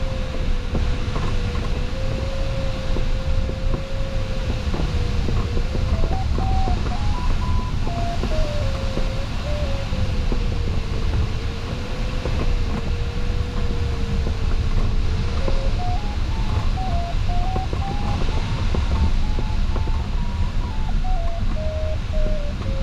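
Steady airflow noise in a glider's cockpit in flight, with the variometer's single electronic tone over it. The tone holds low for most of the time and steps up higher about six seconds in and again from about fifteen seconds in, its higher pitch signalling rising air.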